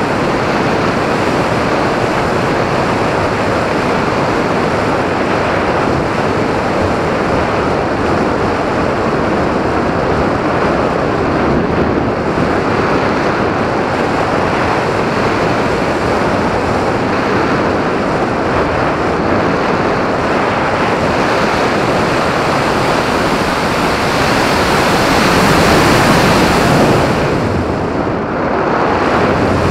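Loud, steady rush of wind over an action camera mounted on an RC glider in flight. It swells louder late on and dips briefly near the end.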